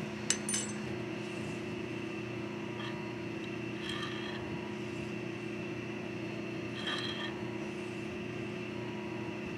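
Hand tap being turned with a T-handle tap wrench, cutting a left-hand thread in 954 bronze: a few light clicks as the wrench is set on, then short faint scraping squeaks every few seconds with each turning stroke, over a steady hum.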